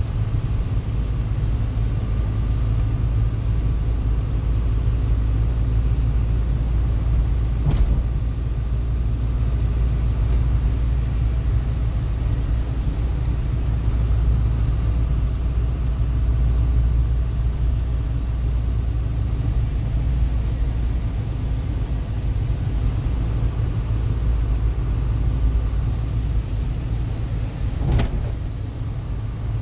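Inside a moving vehicle on a wet road: steady low engine and road rumble. Two sharp clicks come through, one about 8 seconds in and one near the end.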